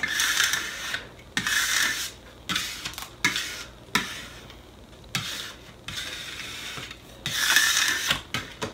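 A plastic squeegee rubbed in repeated short strokes over vinyl stencil on a wooden board, pressing the stencil down. There are a few light knocks between strokes and a longer, louder stroke near the end.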